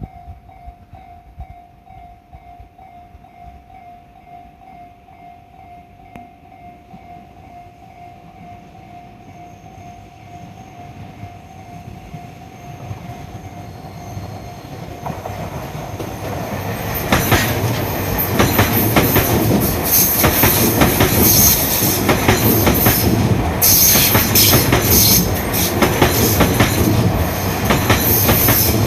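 A Japanese railway level-crossing warning bell rings in a steady, fast-pulsing tone, then a Tobu Skytree Line train approaches, growing louder from about halfway and passing close and loud for the last ten seconds, its wheels clattering over the rail joints.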